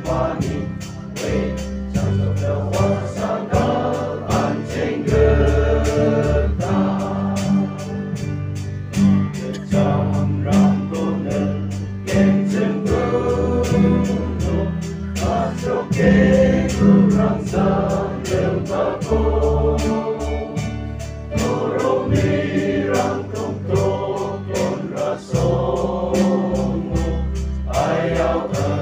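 A gospel song sung in Garo by a choir, over a steady beat and bass accompaniment.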